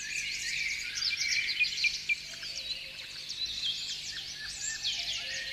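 A chorus of small songbirds chirping and twittering, with many short, quick calls overlapping.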